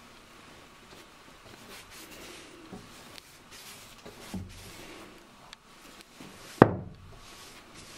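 Paintbrush strokes drawing wet paint across a flat wooden cabinet top, with a few light knocks and one sharp knock, the loudest sound, about two thirds of the way through.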